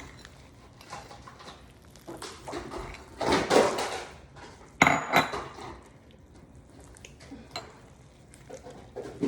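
A utensil clinking and scraping against a bowl as slime is stirred, with a louder stretch of scraping about three seconds in and a sharp knock about five seconds in.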